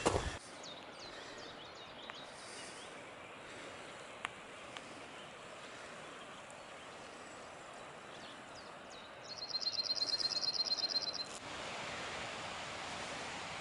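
Songbirds in open countryside: a few faint high chirps in the first three seconds, then a fast trill of rapid high notes lasting about two seconds. After that a steady hiss of outdoor air takes over.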